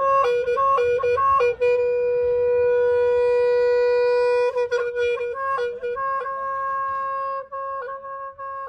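Music: a solo wind instrument playing a slow melody of held notes, with one long sustained note in the middle, growing quieter near the end.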